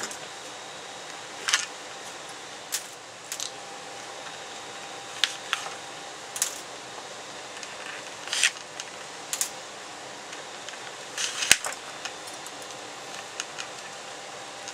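Pliers pulling metal pins out of a walleye mount's skin and form: scattered sharp metallic clicks and clinks, about a dozen of them at uneven intervals, over a faint steady hum.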